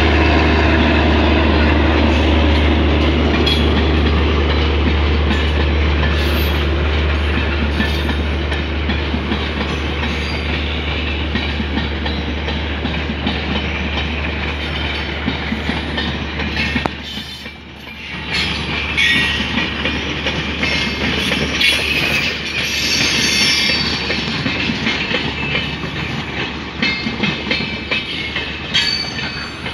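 Double-decker passenger coaches of a diesel-hauled express rolling past at close range, with steady wheel-and-rail rumble and clattering. A low steady diesel drone from the head end of the train underlies the first half and falls away about seventeen seconds in. After that the sound is mostly wheel clatter over the rail joints, with some high wheel squeal.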